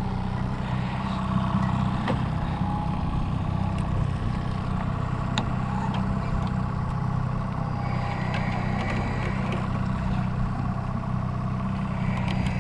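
Boat outboard motor running at a steady, even hum while trolling. A few faint clicks are heard over it.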